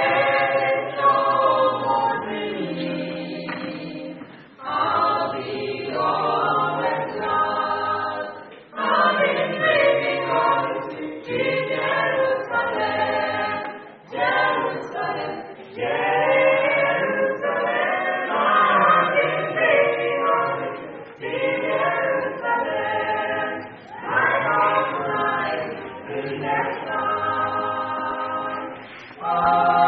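Male gospel quartet singing a cappella in close harmony, in phrases a few seconds long with short breaths between them.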